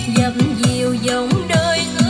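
A song with a singer over a drum beat, played through the speakers of an Aiwa CD/cassette mini stereo from its external input.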